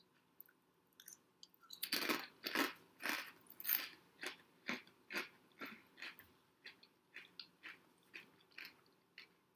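Close-up crunching and chewing of kettle-cooked barbecue potato chips. The crunches start about two seconds in at roughly two a second and grow softer as the chip is chewed down.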